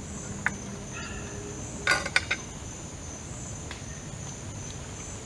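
Steady high-pitched insect chorus. Over it, a metal spoon clinks and scrapes on an enamel plate, with a few light taps and a louder cluster of clinks about two seconds in.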